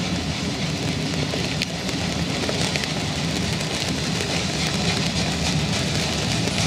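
Steady rain hiss with a low, even engine rumble underneath, and a few faint drop ticks.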